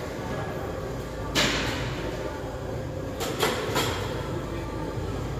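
A barbell back squat in a gym: a sharp sound about a second and a half in and two more shortly before she reaches the bottom of the squat, over steady gym background noise.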